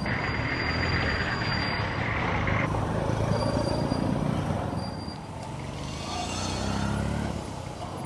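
Road traffic close by: engines of cars, motorcycle taxis and trucks running in slow, congested traffic, a steady low rumble. About six seconds in, one engine's note rises as it revs.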